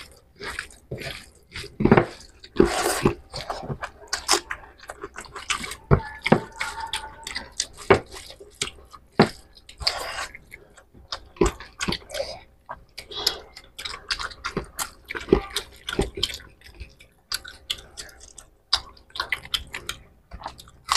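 Wet squelching and smacking of hands kneading rice into fish curry, mixed with chewing and lip smacks. The sounds are short and irregular, with a few longer hissy bursts.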